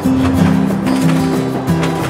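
Background music with a steady beat and a plucked-guitar sound.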